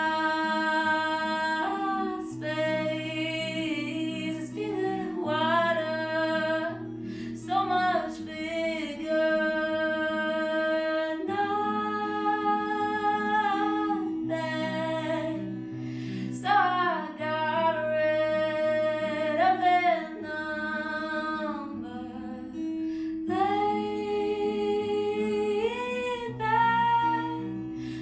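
A woman singing a melody in long, gliding held notes over an acoustic guitar.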